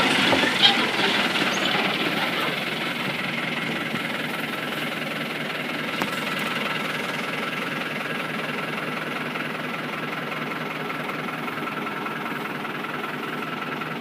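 Farm tractor engine running steadily as the tractor drives across the pasture, heard from the seat.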